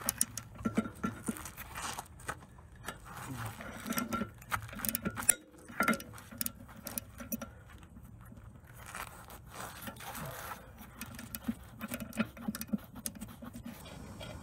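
Hand tools working on drum-brake hardware: irregular metallic clinks, taps and clacks, with a short stretch of scraping about nine seconds in.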